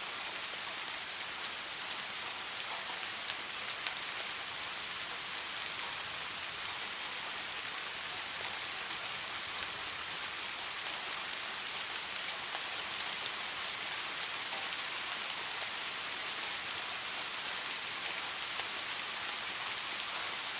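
Soft rain falling steadily: an even hiss with faint scattered drop ticks.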